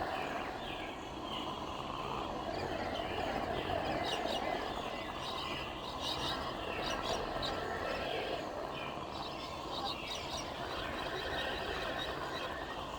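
Designed alien-jungle ambience: a dense, steady bed of strange creature-like chirps and calls over a constant low rumble, with a busier run of clicking chirps in the middle.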